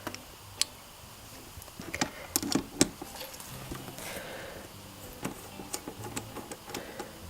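Scattered sharp clicks and light knocks from hand work with a chain press-and-rivet tool on a motorcycle chain's master link. There is a quick run of clicks a couple of seconds in and more spaced ticks later.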